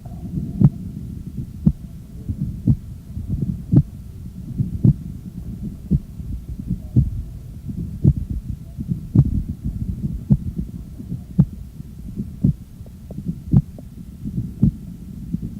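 Recorded heart sounds: a steady series of sharp beats, about one a second, over a continuous low background noise.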